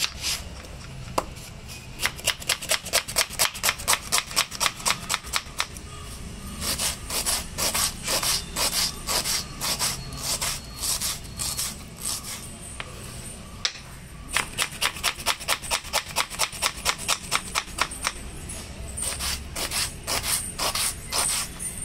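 A small serrated knife dicing a red onion on a wooden cutting board: runs of quick knife strokes through the onion onto the board, about three or four a second, with short pauses between the runs.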